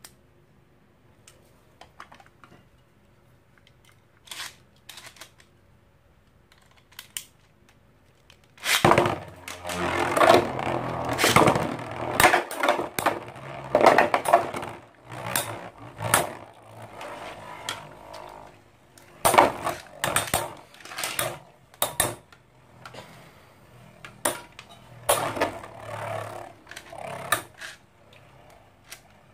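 Two Infinity Nado spinning tops with metal battle rings, spinning and colliding in a clear plastic stadium: a dense rattle and scrape broken by many sharp clacks as they strike each other and the arena wall, starting abruptly about nine seconds in after a few faint clicks of the tops being handled.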